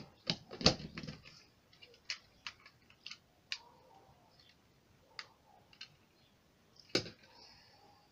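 Hard plastic clicks and taps of Playmobil toy helicopter parts being handled and clipped together. A quick cluster of clicks comes in the first second, then lighter scattered clicks, and a single loud click about seven seconds in.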